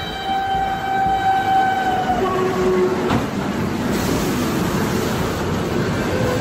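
A train horn blares and drops in pitch about two seconds in as the locomotive passes at close range, with a single sharp crack about three seconds in. The horn gives way to the loud rumble and clatter of freight wagons rushing by.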